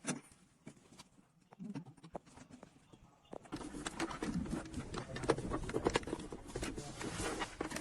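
Plastic interior trim and clips being handled during a car trim installation. There are a few scattered clicks at first, then from about three and a half seconds in a busy run of plastic clicking, tapping and rustling.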